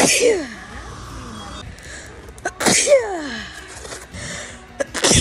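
A person sneezing in a rapid fit, three sneezes about two and a half seconds apart. Each is a sharp intake followed by a loud voiced "achoo" that falls in pitch.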